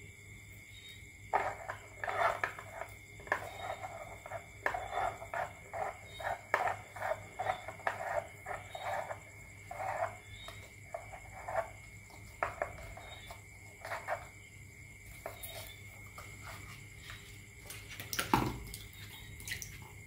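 Small creaks and clicks, about one to two a second, as the homemade paddle boat's popsicle-stick paddle wheel on its skewer axle is turned by hand, twisting the rubber band that drives it. A single louder thump comes near the end.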